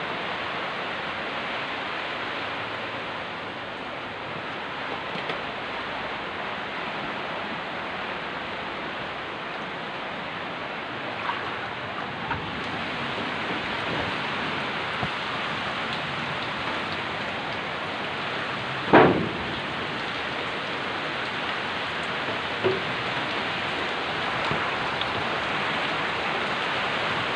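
Steady heavy typhoon rain pouring outside. A single brief knock stands out about two-thirds of the way through, with a few faint clicks around it.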